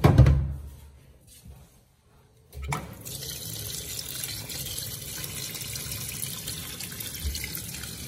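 Water rushing and churning steadily in the wash tub of a Hisense twin-tub semi-automatic washing machine during a rinse, starting with a click about two and a half seconds in after a short quiet.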